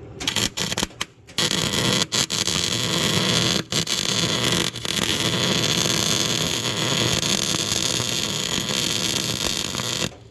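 Arc welding a bead: a loud, steady crackling hiss. It stutters and breaks off several times in the first second and a half, then runs on steadily and stops abruptly near the end.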